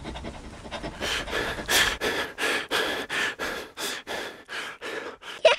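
Rapid gasping, sobbing breaths, about three a second, starting about a second in: a crying sound effect.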